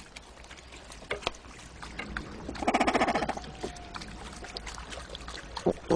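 A cormorant giving one harsh, raspy croak of under a second, about two and a half seconds in, amid scattered light knocks and water sounds.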